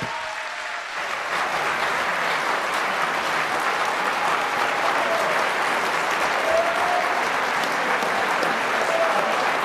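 Audience applauding after a speech, swelling about a second in and then holding steady.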